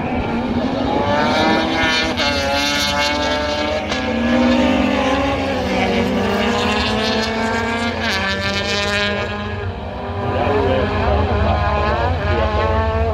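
Autocross race car engine revving hard, its pitch climbing and then breaking off several times.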